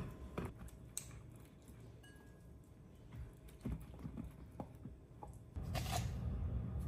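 Scattered light knocks and clicks of kitchen utensils and dishes being handled, with a faint short beep about two seconds in. Over five seconds in, a steady low hum starts together with a sharper click, like a kitchen appliance switching on.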